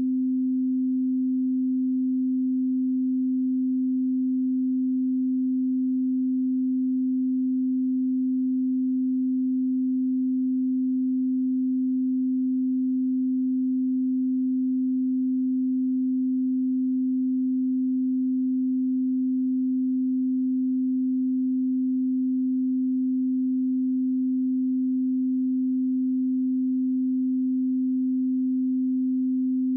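Steady 258 Hz pure sine tone, a single unchanging low hum used as an audio test and calibration signal.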